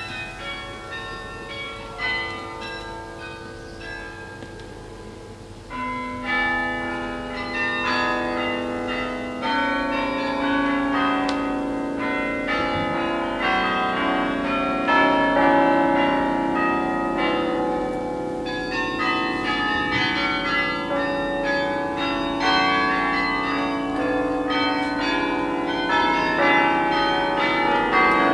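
Carillon bells playing a hymn-tune arrangement, struck from the baton keyboard. A quiet, sparse passage on the higher bells, then about six seconds in the low bass bells come in and the playing grows louder and fuller.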